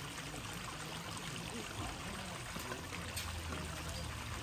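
Steady trickle of running water from a backyard garden pond.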